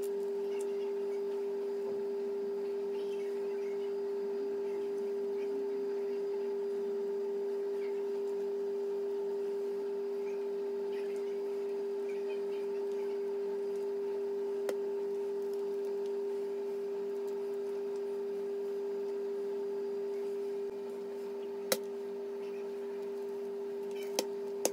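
A steady one-pitch hum, with a few short clicks near the end.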